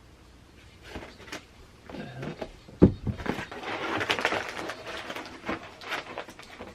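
A cardboard box being handled and opened: scattered clicks, a sharp thump about three seconds in, then a couple of seconds of crinkling and rustling packaging.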